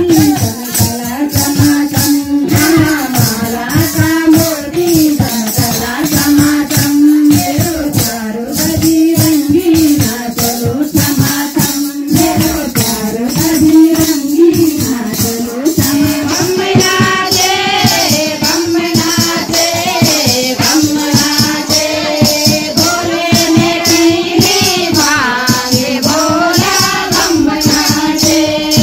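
Kirtan: devotional group singing over hand percussion with rattles keeping a steady, fast beat. The singing grows brighter and fuller about halfway through.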